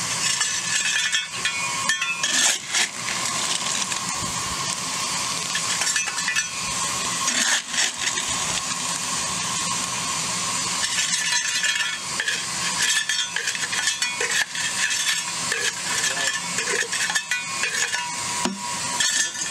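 Coal-fired live steam locomotive hissing steadily while being raised to steam, with scattered metallic clinks and knocks.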